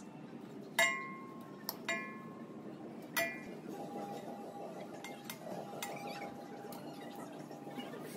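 Metal tools clinking against metal three times in the first few seconds, each strike ringing briefly, the first the loudest; after that a faint steady hum.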